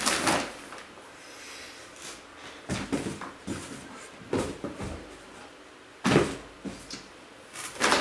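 Several short knocks and rustles from shoes and other items being handled and packed into a cardboard box.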